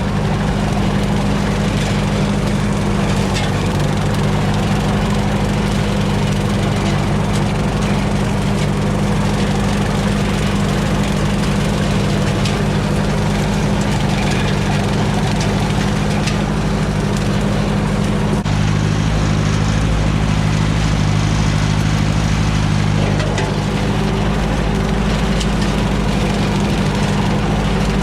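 Ford 860 tractor engine running steadily at raised RPM, turning a bush hog rotary cutter through the PTO. The engine note shifts for a few seconds about two-thirds of the way through.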